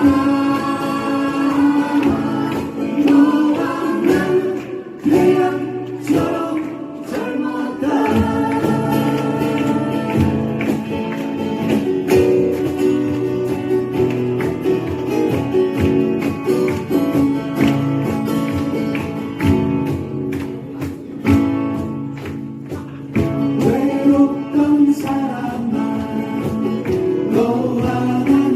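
Live acoustic-guitar band playing a Korean pop song, with singing over strummed guitars.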